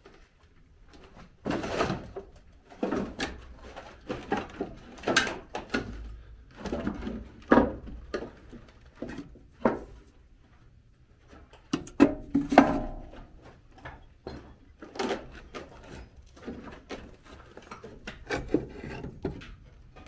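Irregular wooden knocks, creaks and scrapes of uneven loudness, with a short squeaky creak about twelve and a half seconds in.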